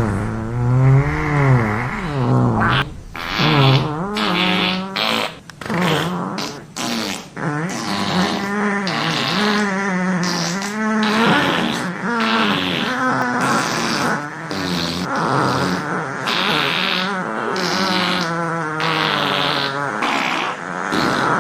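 A string of fart sound effects, one after another with short gaps, each a long low blurt whose pitch wobbles up and down.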